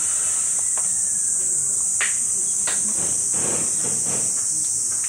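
A steady, high-pitched chorus of insects singing without a break, with a few soft knocks and a short rustle about three to four seconds in.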